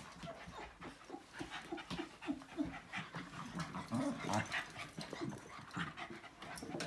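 Small dogs play-fighting, panting and making short low grunts, several a second.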